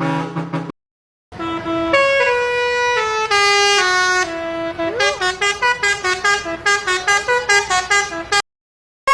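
A musical car horn playing a tune: a run of held notes stepping down in pitch, then a fast string of short, bouncing notes. Before it, a rapid pulsing sound stops within the first second, followed by a short silence.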